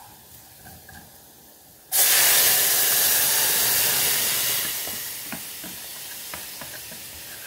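Cooked beans poured into a pot of hot oil and browned garlic, which breaks into a sudden loud sizzle about two seconds in. The sizzle eases after a few seconds into a steady quieter sizzle, with a few light clicks of a spoon against the pot.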